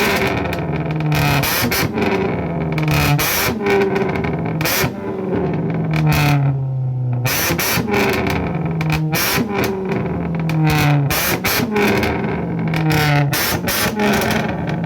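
Rock music with distorted guitar and drum hits. A low bass line steps down in pitch in a pattern that repeats about every two seconds.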